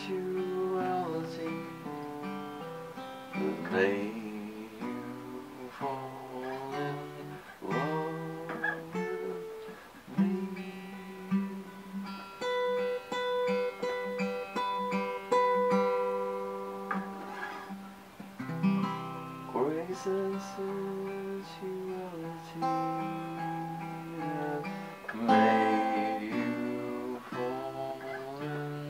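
Acoustic guitar playing an instrumental passage of picked chords left to ring, with a new chord struck every few seconds.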